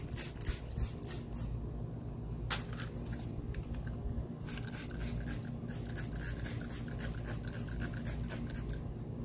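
Hand trigger spray bottle spritzing a water-and-alcohol solution onto a car headlight and its protective film. There is a quick run of short sprays in the first second and a half, one more about two and a half seconds in, then a rapid string of sprays from about four and a half to eight and a half seconds in, over a steady low hum.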